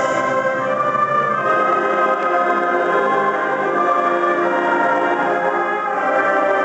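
Youth concert band of woodwinds and brass playing a slow passage of sustained chords, the held notes changing every second or two.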